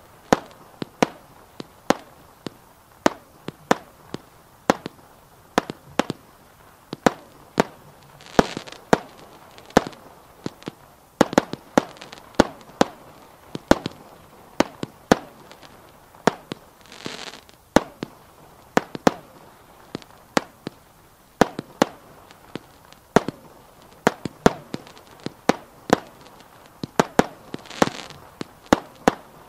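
A 48-shot fireworks battery firing its shots in a quick, irregular run of sharp bangs, about two or three a second, as the stars burst. Three times, about a third of the way in, about halfway and near the end, a longer hissing crackle rises among the bangs.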